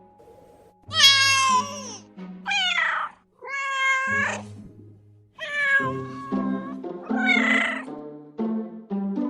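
Cat meowing about five times in a row, each meow about a second long, over background music with low held notes.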